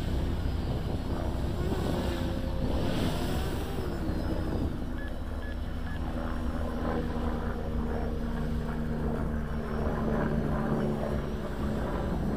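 Leap 3D quadcopter's motors and propellers whining in flight, the pitch shifting up and down as the throttle changes, over a low rumble.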